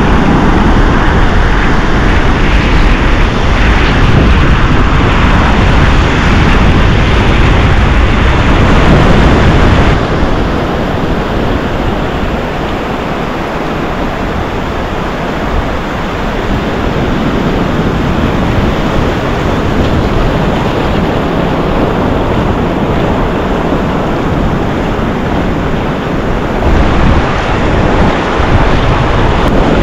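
Ocean surf breaking and washing up a sandy beach, with wind rumbling on the microphone. About ten seconds in the sound changes abruptly and the wind rumble drops, leaving the steady wash of the waves.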